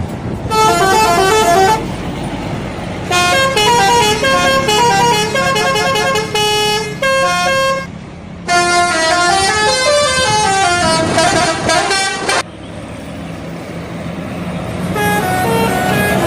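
Indonesian bus 'telolet' multi-tone horn playing quick melodic tunes of stepped notes, in four runs with short pauses between them, the longest pause coming about three-quarters of the way through. The bus engine runs underneath and is heard alone in the pauses.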